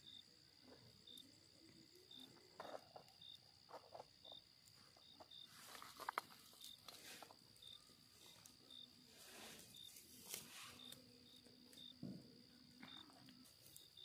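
Faint night insects, crickets: a steady high trill with another insect's short chirps repeating every half second or so. Brief rustles and knocks of food and a bowl being handled come and go in the middle.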